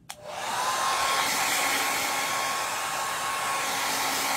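Handheld hair dryer clicked on, spinning up within about half a second and then blowing steadily, a rushing hiss with a faint steady whine, drying freshly applied chalk paste.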